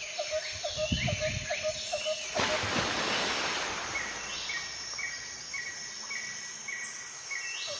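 Birds singing: a rapid run of short repeated notes with higher chirps over them, then, after a sudden change about two seconds in, an even hiss with a short high note repeated about twice a second.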